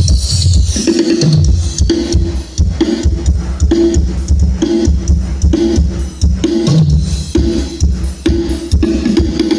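Loud music with a steady drum-kit beat, heavy kick drum and deep bass. It is played through a 2x2 Nakachi outdoor PA set: two 18-inch subwoofer cabinets fitted with 1000-watt BV drivers, and two 15-inch mid cabinets.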